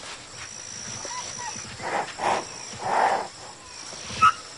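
Young rhinoceros calf giving complaining cries: a few separate calls, the loudest about three seconds in, and a short sharp squeak near the end. Behind them runs a steady high insect buzz.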